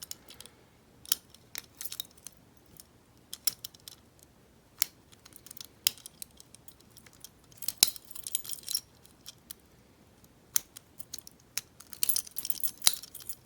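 Sparse metallic clicks and light scrapes of a warded pick turning in a padlock's keyway against the wards. A denser run of metal-on-metal rattling comes near the end.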